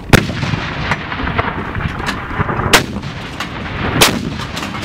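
Towed howitzers of a battery firing: three sharp blasts, the loudest right at the start, the next about two and a half seconds later, and the third about four seconds in.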